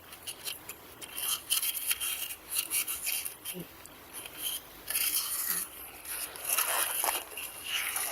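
Irregular scraping and rubbing noises in short clusters, mostly high-pitched.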